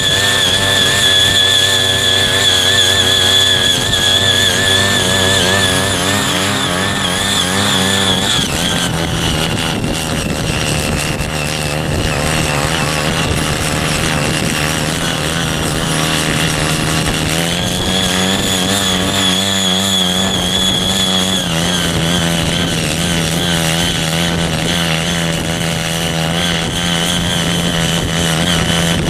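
Small engine of a CY50 mini foldable cultivator (power tiller) running hard while its tines dig into soil. Its pitch drops a little about a third of the way in, rises again a little past halfway, then drops again and holds.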